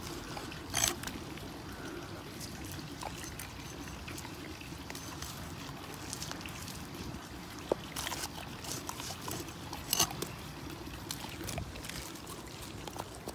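A few separate sharp chops of a meat cleaver through fish into a wooden stump, the loudest about a second in and again near ten seconds, over a steady rushing background.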